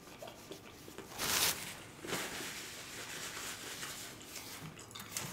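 Close-up eating sounds: soft chewing and mouth clicks, and a paper napkin rustling against the mouth, with a short, louder rustle about a second in.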